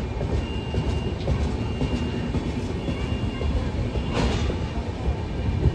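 Indian Railways passenger train's LHB coaches rolling past at speed: a steady, loud rumble of wheels on the rails. A faint high whine comes and goes, and a short sharp noise stands out about four seconds in.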